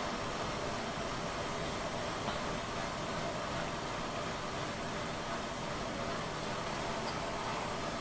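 Car engine idling steadily at about 840 rpm while running lean, with a P0171 lean code set.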